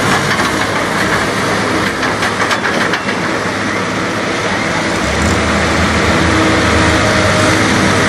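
John Deere 260 skid steer's diesel engine running as it drives off grading a dirt track, over a steady wash of crowd noise. A deeper low rumble joins about five seconds in.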